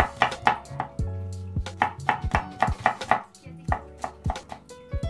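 Kitchen knife slicing garlic cloves on a wooden cutting board: quick, uneven knife strokes hitting the board, several a second, with short pauses between runs. Background music plays underneath.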